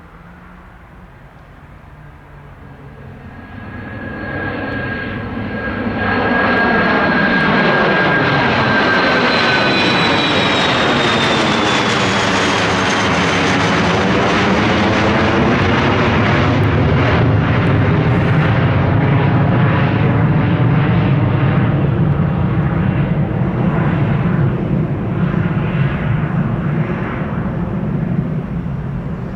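Dassault Falcon 2000EX business jet's twin turbofan engines at takeoff power as it passes and departs: the sound builds over the first few seconds, a high whine falls in pitch as the jet goes by, then a steady loud low rumble remains as it climbs away, easing slightly near the end.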